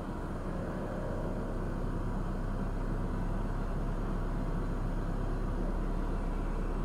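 Steady low rumble of outdoor background noise with a low hum underneath, swelling slightly over the first couple of seconds and then holding.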